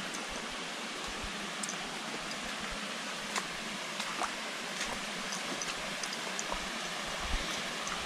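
Steady rush of a small creek and the waterfall cascading over rock ledges just ahead, with a few faint clicks scattered through it.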